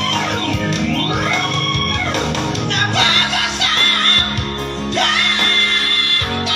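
Live amplified singing by a vocal trio over instrumental backing: the voices slide up and down, then a long high note is held with vibrato from about three seconds in until near the end. Singers are trying to outlast each other on a sustained note.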